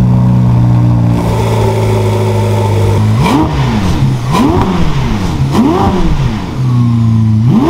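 Ferrari SF90 Spider's 4.0-litre twin-turbo V8 idling, then revved three times in quick blips about a second apart. It settles back to idle before a fourth rev begins right at the end.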